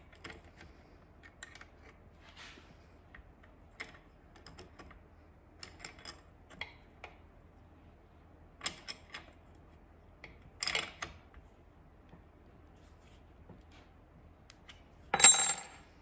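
Wrenches clicking and clinking on the band adjusting screw and locknut of a Chrysler 727 TorqueFlite transmission case as the band adjustment is locked down. A few louder metal clicks come midway, and a short, louder metallic clatter near the end.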